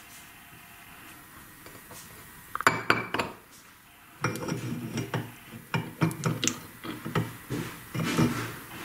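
Hands pulling sticky, stringy slime out of the open head of a stopped meat grinder: a few sharp clicks about three seconds in, then a run of irregular sticky crackles and small metal clinks from about four seconds on.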